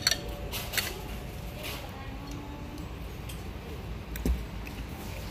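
Tableware clinking a few times, with a heavier knock about four seconds in, over a steady background of restaurant noise.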